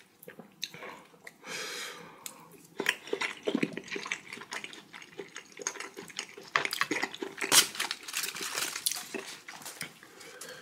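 Wooden chopsticks clicking and tapping against plates and dishes while picking up raw fish and side dishes: a run of small, irregular clicks with a few sharper taps.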